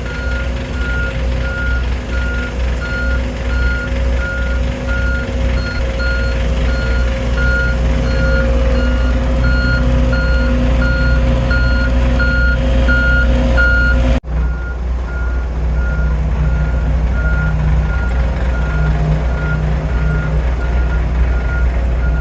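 Reversing alarm on heavy construction equipment beeping evenly, about two beeps a second, over a steady low engine rumble. About 14 seconds in the sound cuts abruptly and picks up again, with the beeping still going.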